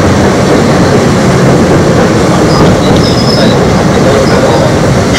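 Eizan Electric Railway electric railcar with nose-suspended (tsurikake) traction motors running along the line, a steady loud running noise heard from inside the car. Faint high wheel squeals come through about halfway in.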